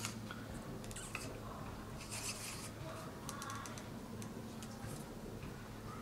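Faint handling sounds as a small tube of paint is squeezed: soft rustles and a few small clicks, over a low steady hum.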